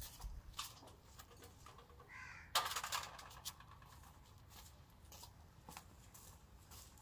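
Birds calling: a short call about two seconds in, then a louder, harsh call lasting about a second, over scattered faint clicks and taps.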